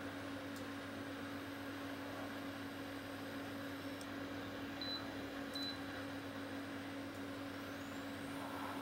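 Steady electrical hum and fan noise from a 3000 W inverter/charger combi running ceramic hotplates at about 2–3 kW, near its full load. Two short high beeps sound just over half a second apart, about five seconds in.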